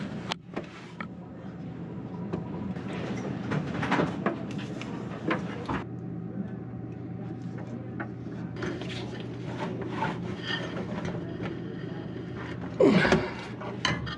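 Hands and small tools working on copper refrigerant line fittings at a compressor: scattered clicks, taps and rubbing over a steady low hum. Near the end a louder short squeak falls in pitch.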